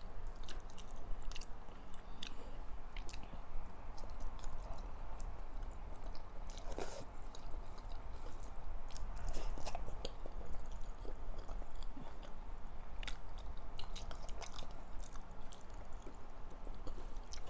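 Close-up chewing of a mouthful of pork, vegetables and rice, with scattered soft clicks and smacks throughout.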